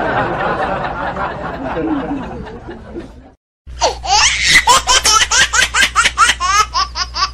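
Two laughter sound effects in a row. First, a burst of many people laughing together, which fades away. Then, after a short gap, one person's high-pitched laugh in quick, rapid bursts.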